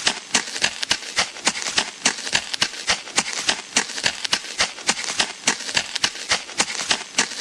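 Footsteps walking at an even, brisk pace on a crunchy surface, each step a sharp crunch, about two to three steps a second with smaller crackles between.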